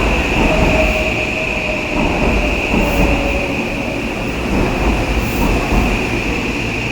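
Odakyu GSE 70000 series electric train rolling slowly into a terminal platform, with a steady low rumble of wheels and running gear and a steady high-pitched whine throughout.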